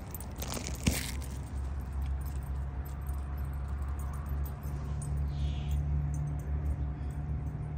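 Metal dog tags on a collar jingling, with a sharp knock about a second in. A steady low rumble runs underneath.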